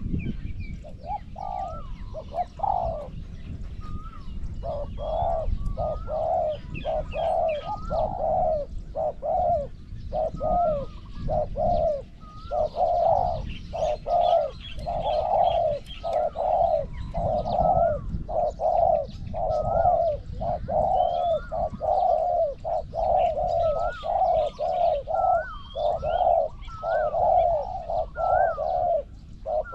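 Spotted doves cooing in long runs of short, deep repeated coos: a caged decoy dove calling to draw a wild dove to the trap. Small birds chirp higher above, over a low rumble.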